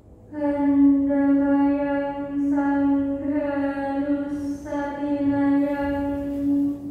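A woman chanting Buddhist paritta verses in a monotone, holding one steady note throughout with short shifts between syllables.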